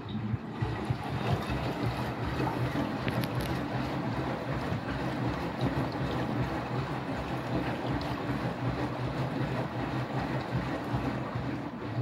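Beko WTK104121W front-loading washing machine tumbling its drum in a drum-clean rinse: water sloshing in the drum over a steady low motor hum, starting abruptly.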